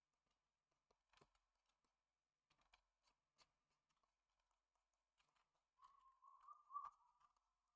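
Near silence with faint scattered clicks and a brief soft scratching, typical of a pen stylus tapping and stroking on a graphics tablet.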